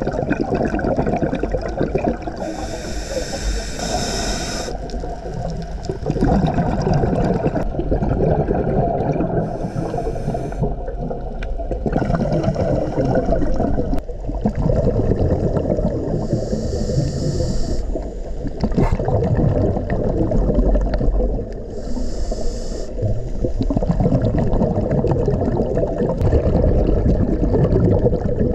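Underwater sound picked up by a diver's camera: a steady low rumble of moving water, broken about every six seconds by a short burst of bubbling hiss from a scuba regulator as the diver exhales.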